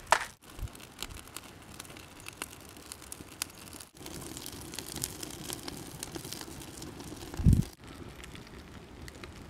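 Newly lit wood fire of birch bark and split kindling crackling in a clay-pot smoker, with many small sharp crackles and pops. A brief low thump comes about three quarters of the way through.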